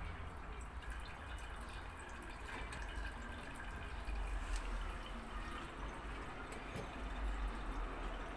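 LG washing machine running with water trickling and splashing through it over a steady low motor hum, the machine working normally again after a stuck handkerchief was cleared from its drain.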